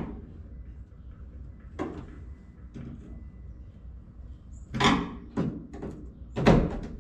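Knocks and clunks from handling and adjusting the dash grilles in a VW Beetle's metal dashboard: a sharp knock at the start, a couple of lighter taps, then two louder clunks near the end.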